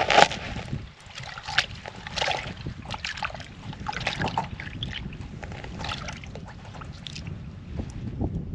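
Water splashing and sloshing irregularly in an ice-fishing hole as a lake trout is landed by hand through it, with wind on the microphone. The loudest splashes come right at the start.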